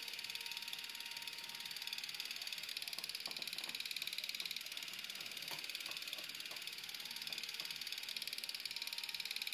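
Steady whirring hiss with a fast, fine ticking, typical of the simulated Super 8 film-camera running sound that the app lays over its footage. A few faint short sounds come through in the middle.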